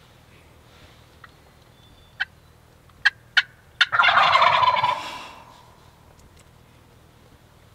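A wild turkey gobbler gobbles once, loud and close: a rattling call of about a second and a half. It is preceded by a few short, sharp notes.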